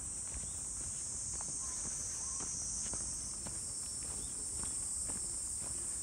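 Steady high-pitched shrilling of an insect chorus, with faint footsteps ticking underneath.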